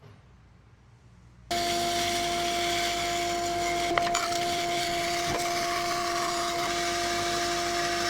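Electric wood router cutting wood, cutting in suddenly about a second and a half in and running at a steady level with a constant high whine.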